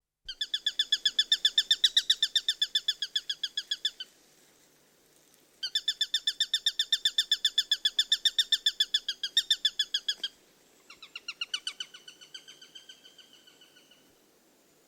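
Eurasian sparrowhawk giving a rapid chattering call: three long runs of sharp repeated notes at about ten a second, the third run shorter and fading away.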